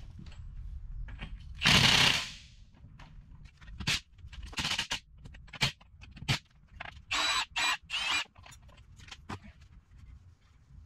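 Cordless impact wrench hammering on the nuts of a heavy truck's front spoked wheel, tightening them in a series of short bursts: the longest and loudest about two seconds in, then several brief bursts between about four and eight seconds.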